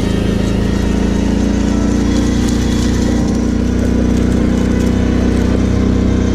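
Kawasaki KFX 700 V-Force quad's V-twin engine running at steady, even revs.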